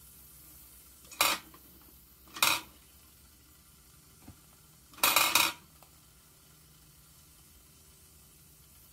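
Wilesco D6 live-steam model engine running with a faint steady hiss. It is broken three times by short, loud bursts of clattery, sizzling noise, the third the longest at about half a second.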